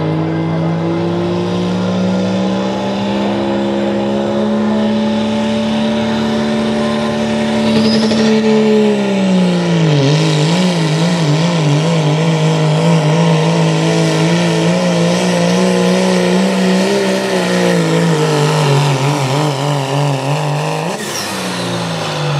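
Second-generation Dodge Ram's Cummins diesel pulling a sled at full throttle, a loud steady engine note. About nine seconds in, the engine speed dips and wavers under the load, then it sags and falls away sharply near the end.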